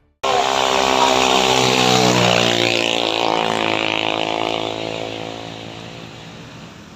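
Honda Brio's engine straining under heavy load up a steep climb, its pitch slowly falling as the revs drop and the car bogs down. It cuts in suddenly and gradually gets quieter.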